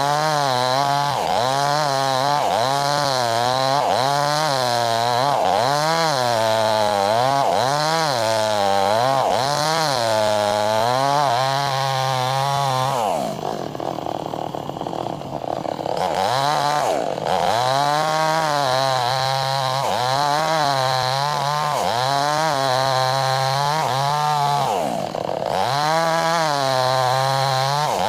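Chainsaw running at high revs while ripping through wood lengthwise, its pitch swinging up and down about once a second under the load of the cut. About halfway through, the engine drops to lower revs for a couple of seconds, then speeds up again.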